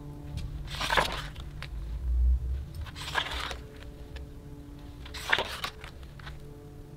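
Pages of a hardcover photobook being turned by hand: three short paper swishes, about two seconds apart.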